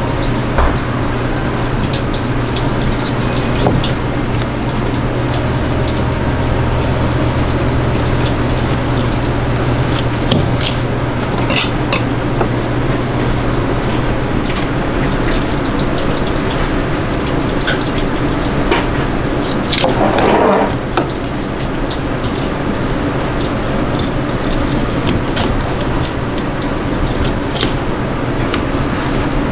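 Steady running water with a low hum beneath it. Scattered light taps of a knife on a plastic cutting board come through as raw yellowtail is sliced.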